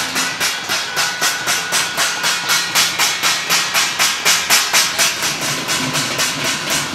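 Steel thali plates being beaten in a fast, steady clanging rhythm of about four strikes a second, over a constant background of more metallic banging.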